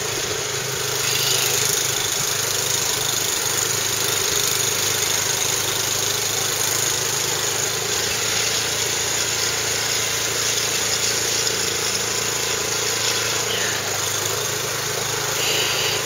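Snowblower engine running steadily as the machine blows snow.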